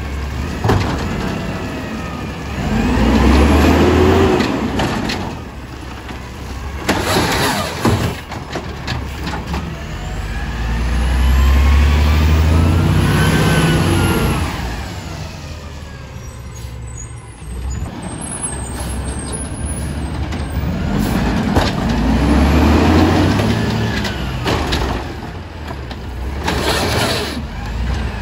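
Automated side-loader garbage truck's diesel engine revving up and back down three times, a few seconds each, as it powers the lifting arm and packer between steadier running. Short sharp noises, likely air-brake or metal clanks, come about eight seconds in and near the end.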